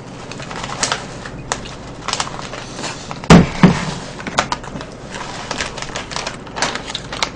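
Table clatter: a plastic snack bag crinkling as seasoned laver flakes are shaken out of it into a bowl, with short clicks of chopsticks and dishes. A louder knock comes a little over three seconds in.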